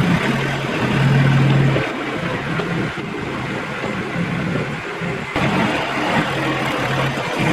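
Kubota tractor engine running steadily while pulling a box blade over dirt, briefly louder for about a second near the start.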